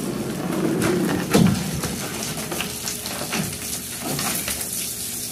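Water from a hose hissing and pattering over a crocodile and the wet plastic tub floor, with scattered clicks and one louder knock about a second and a half in.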